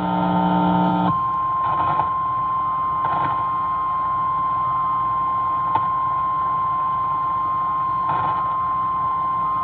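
Emergency Alert System attention tone received over AM radio: one steady, high beep near 1 kHz that starts about a second in and holds, over radio static hiss. A different buzzy, many-toned sound plays briefly before it.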